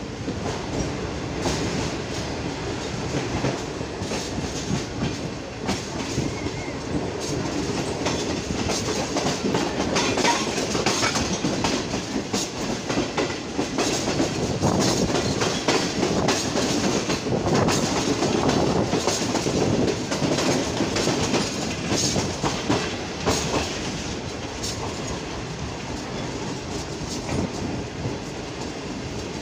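Rehman Baba Express passenger train running along the track, heard from the open doorway of a moving coach: a steady rumble of wheels on rail with a clickety-clack of joints, growing louder for a stretch in the middle.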